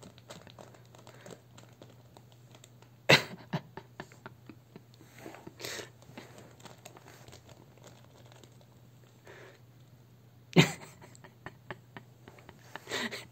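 A plastic chips bag crinkling and rustling as a pet roots around with its head inside it. Two loud crackles come about three seconds in and again about ten seconds in.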